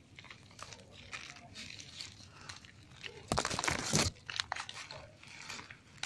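Hands pulling apart and crumbling a garlic vine's root-bound root ball: soil crumbling and matted roots tearing in scattered crackles, with a louder run of crackling about three to four seconds in.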